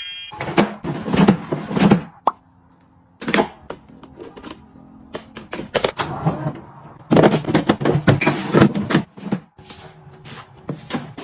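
Kitchen items being handled and set down: an irregular run of knocks, clicks and rustling from containers and packaging, with a brief near pause about two seconds in.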